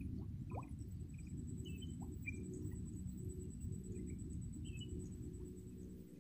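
Faint swamp-forest ambience: scattered short bird chirps and a thin, steady, high insect whine over a low rumble.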